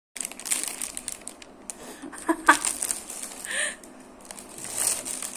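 Clear plastic bag crinkling and rustling as it is handled, in irregular crackles.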